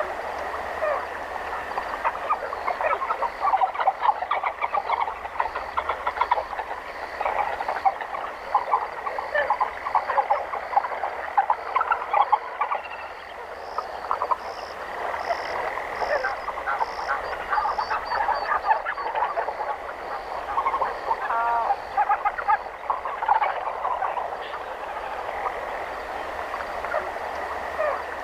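A chorus of many frogs calling at once, dense overlapping short croaks that go on without a break, over a steady high tone and faint repeating higher chirps.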